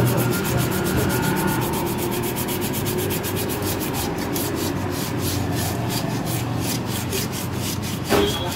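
Alto 800 rear drum brake shoes being rubbed down by hand with quick back-and-forth strokes, a rhythmic scraping at about five strokes a second: cleaning and scuffing the shoe linings during brake shoe servicing.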